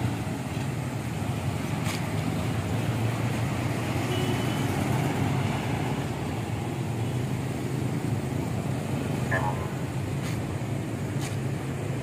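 Steady road traffic: cars, motorcycles and a box truck driving past, a continuous engine hum and tyre noise.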